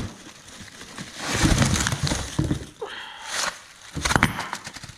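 Box and packaging of a set of wheel spacers being handled and opened: rustling and tearing, with a cluster of sharp clicks about four seconds in.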